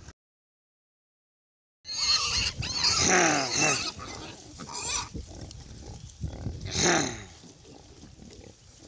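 A herd of black piglets squealing, the calls falling in pitch. The loudest squeals come about three seconds in and again about seven seconds in. The first two seconds are dead silent, an edit gap.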